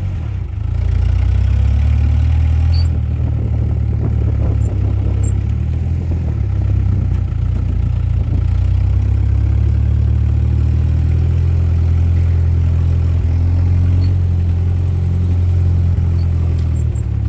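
A loud, steady low drone like an engine running at idle, with faint light clatter over it.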